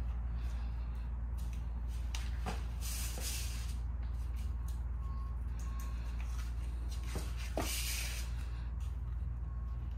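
Steady low hum under light handling noises: soft rustles, scrapes and taps of someone shifting on a sheet of OSB and marking with a pen. Two louder, hissy rustles come about three and about eight seconds in.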